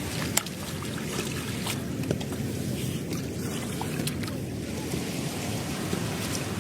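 Steady rumble of wind on the microphone with seashore noise, broken by a few short sharp clicks.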